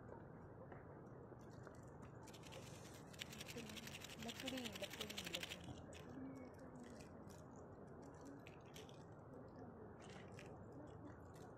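Quiet crackling and rapid clicking at a small pine-cone fire as it is tended, densest a couple of seconds in, with a few stray clicks near the end. Faint voices are heard in the middle.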